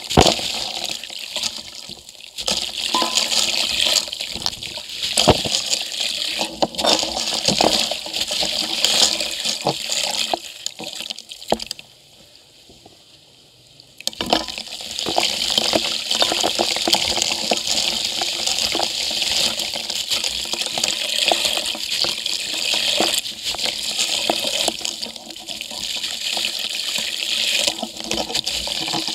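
Dry, dusty concrete lumps crumbled by hand close to the microphone, the grit and powder falling into a steel bucket: a steady gritty hiss full of small crackles, with a short lull about twelve seconds in.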